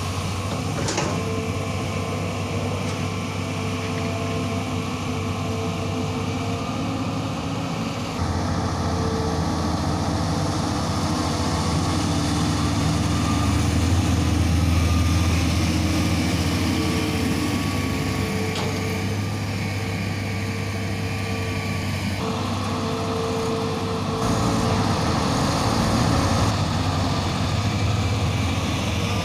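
Heavy diesel engines running steadily: Tonly off-road dump trucks and a Hitachi long-arm excavator at work. The engine drone grows louder for a few seconds in the middle and shifts abruptly a few times.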